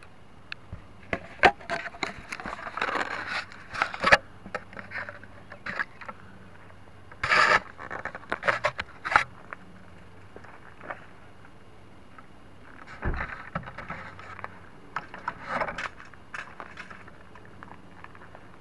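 Handling noise on a small camera mounted under the wing of an RC plane: irregular scrapes, rubs and sharp clicks in three bunches, loudest in the first few seconds, with no motor running.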